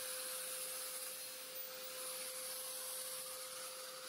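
Power sander running steadily on the fibreglass mould, one constant whine under an even hiss.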